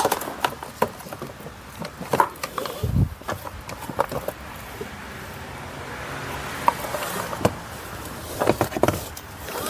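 Plastic seat side trim panel being pulled up and moved about, with irregular clicks, knocks and plastic rattles, and a dull thump about three seconds in.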